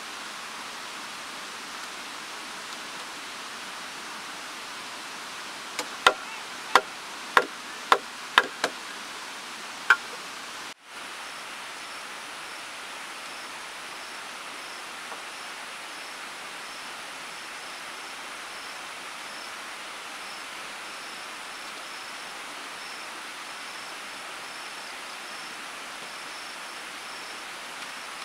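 About seven sharp wooden knocks within four seconds, as planks are handled and set down on each other, over a steady outdoor hiss. Later a faint insect chirp repeats high above the hiss.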